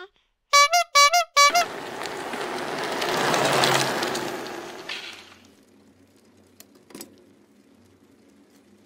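Sound effects: three short, bright horn toots in quick succession, then a noisy whoosh that swells for about two seconds and fades away. After it only a faint low hum, with one sharp click about seven seconds in.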